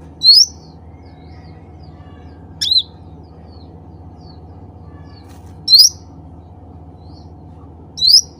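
Cucak ranting songbird giving short, sharp calls that sweep quickly upward, four in all, spaced about two to three seconds apart, over a steady low hum.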